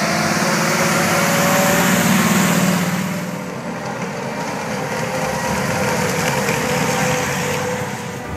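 Engine of a camouflaged WWII German military car running as it drives through mud; about three seconds in it changes to the engine of an SdKfz 2 Kettenkrad tracked motorcycle driving along a dirt track.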